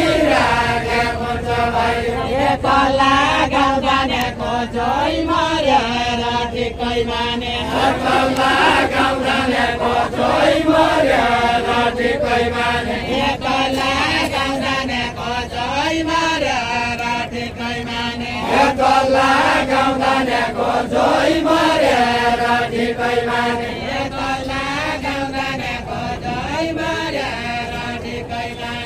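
Deuda folk song sung in a drawn-out chanting style: a voice holds long notes with repeated swoops up and down in pitch.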